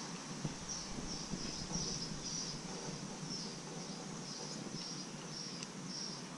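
Short high-pitched chirps repeating about twice a second, insect-like, over a steady background hiss.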